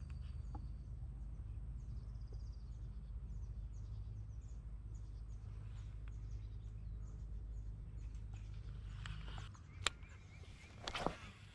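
Small birds chirping over a steady low rumble of background noise. Near the end there is a sharp click, then a brief rustle.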